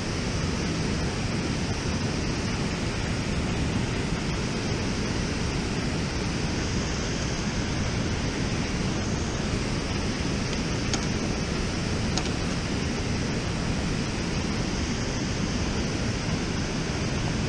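Steady rushing roar of water pouring over a low dam spillway and churning in the tailwater below it.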